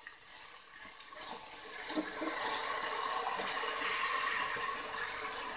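Soaked rice poured into a hot pressure cooker of fried black chickpeas, the wet grains sizzling in the oil; the sizzle builds about two seconds in and then holds steady, with a few light knocks of the bowl or ladle against the cooker early on.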